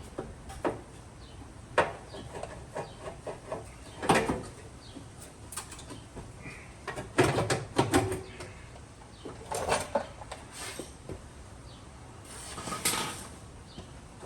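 Irregular knocks, clicks and clanks of tools and parts being handled during car bodywork, about a dozen separate sounds with a few louder ones about four, seven and thirteen seconds in.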